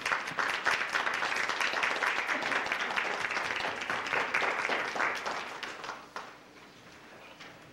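Audience applauding with dense hand-clapping that fades out about six seconds in.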